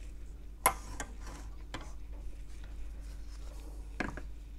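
A few light clicks and taps, the sharpest one under a second in, over a steady low hum.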